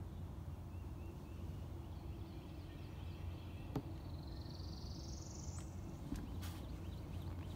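Quiet swamp ambience: faint bird calls, including one rising call about four seconds in, over a steady low hum, with a few light clicks.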